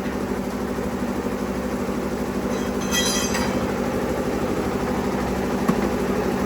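Ice-crushing machine running steadily, a loud even mechanical hum, with a brief high squeal about three seconds in.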